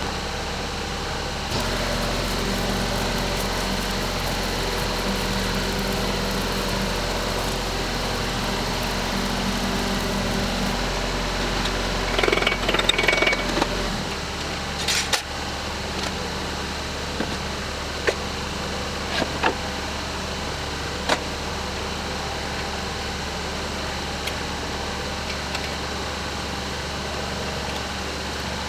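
An engine running steadily. Its low note deepens about a second and a half in and drops back about halfway through, and there is a burst of clattering just before the change and a few sharp clicks or knocks after it.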